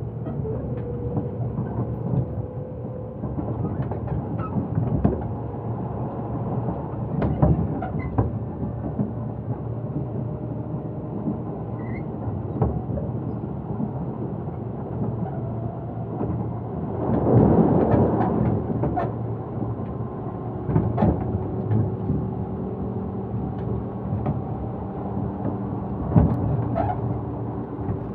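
Inside a Tobu Urban Park Line (Noda Line) commuter train car under way: a steady low rumble of wheels and running gear with a faint steady hum. Sharp clunks come every few seconds as the car jolts, and about 17 seconds in a louder rushing swell lasts a second or two.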